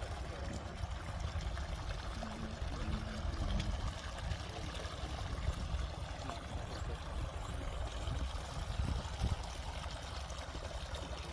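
Pumped irrigation water pouring and flowing steadily, with a low rumble underneath.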